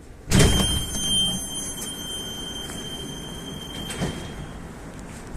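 Doors of an Ivolga 4.0 electric train closing: a sudden hiss with a steady high whistling tone, ending with a knock about four seconds in.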